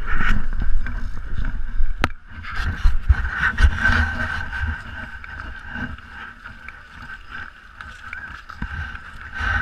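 Handling noise from an action camera being swung about while skating: low rumble and several sharp knocks, the strongest about two seconds in and again around three to four seconds, over a steady hiss of skate blades gliding on ice.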